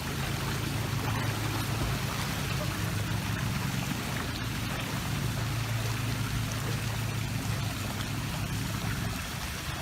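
Steady sound of moving pool water as a dog swims and paddles through it, with a low steady rumble underneath.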